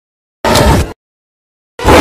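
Two short, loud sound-effect clips from the 2005 King Kong film, each about half a second long and cut off sharply, with dead silence before, between and after them.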